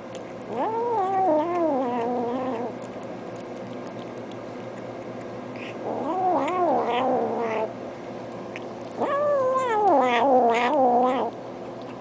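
Domestic cat giving three long, wavering yowls of two to three seconds each, the first about half a second in, the second around six seconds, the last near nine seconds.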